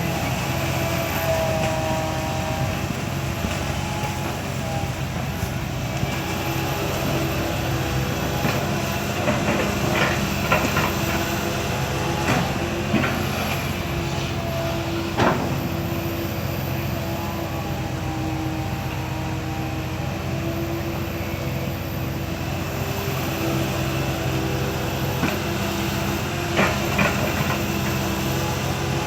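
Komatsu PC160LC hydraulic excavator working: its diesel engine running steadily under load with a whine that shifts in pitch, and several sharp metallic clanks and knocks, the loudest about fifteen seconds in.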